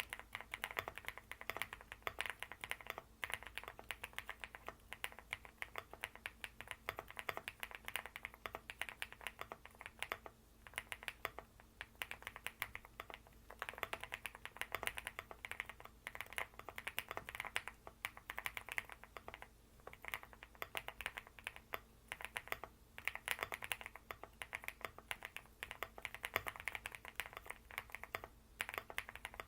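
Mechanical keyboard with factory-lubed linear Epomaker Jade Blossom switches in an EMG80 TKL case, typed on in fast, continuous runs of keystrokes. There are brief pauses between the runs.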